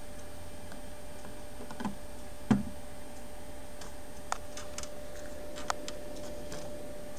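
A few separate sharp clicks and light knocks, the loudest about two and a half seconds in, over a faint steady electronic tone.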